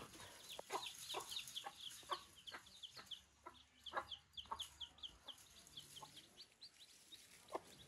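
Small chicks peeping, a fast run of short high peeps, with a scatter of short, lower clucks from the mother hen while they feed.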